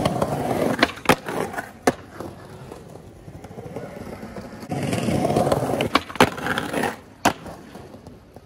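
Skateboard wheels rolling over stone paving, with several sharp clacks of the board. The rolling comes in two stretches, at the start and again about halfway through, and dies down near the end.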